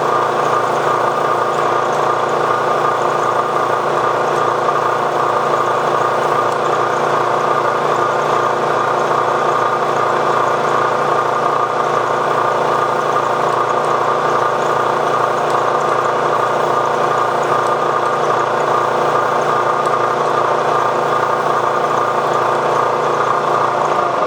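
Milling machine spindle running steadily as it drills the lengthwise spring-and-plunger hole into a steel rifle bolt body for a Sako-style extractor.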